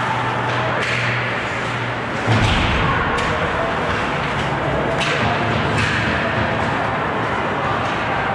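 Ice hockey play in an arena: skates scraping on the ice and sticks and puck clacking several times, with a heavier thud about two seconds in, over a murmur of voices.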